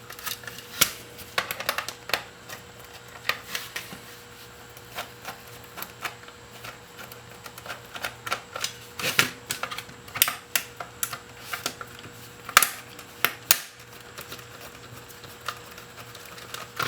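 Irregular clicks and taps of a small plastic electronics case being handled and worked with a precision screwdriver, with a few sharper knocks among them.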